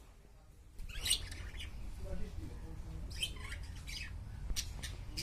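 Pet budgerigars chirping and squawking in short, scattered calls, starting about a second in, over a low steady background rumble.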